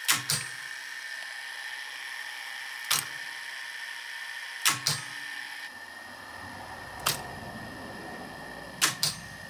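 Sharp mechanical clicks from the exposed tape-transport mechanism of a Sony SLO-1400 Betamax deck, several in close pairs, coming every two seconds or so over a steady hiss. A low rumble comes in about halfway through.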